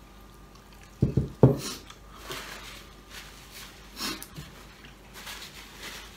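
A few sharp thumps a little over a second in, then soft rustling as a paper towel is pulled out and handled.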